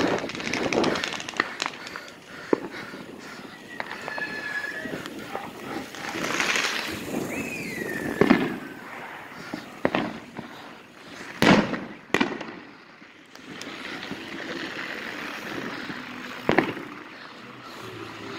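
Consumer fireworks going off: several sharp bangs spaced a second or more apart, the loudest a close pair about two-thirds of the way through.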